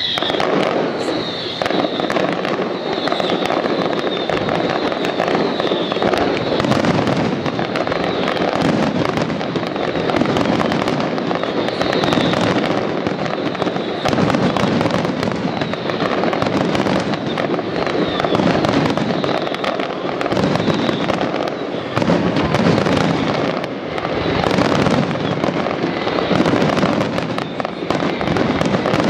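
Fireworks display going off in a dense, continuous barrage of bangs and crackling, with short whistles falling in pitch at the start and again a few times later.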